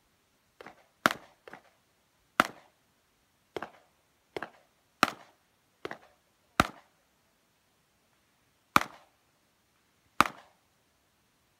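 Handgun shots, about eleven at an uneven pace, some much louder than others, with a pause of about two seconds before the last two.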